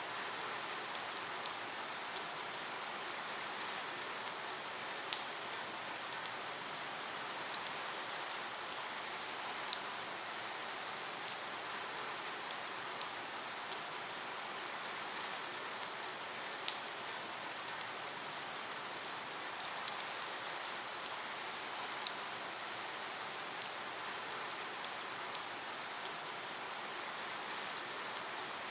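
Steady rain falling, with many small drips and patters landing close by.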